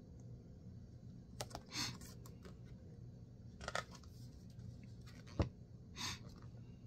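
A paper picture book being handled and its page turned: a few short soft paper rustles and one sharp light knock, over a faint steady low room hum.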